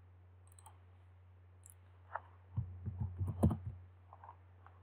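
Computer mouse clicks and keyboard typing, with a few separate clicks early on and a quick run of keystrokes about two and a half seconds in, over a steady low electrical hum.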